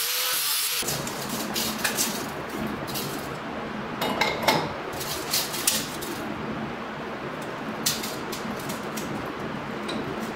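An angle grinder cutting into a steel torque tube, with a wavering whine, stops abruptly less than a second in. After it, a steady hiss with scattered clicks and knocks as a tape measure and the steel tube are handled.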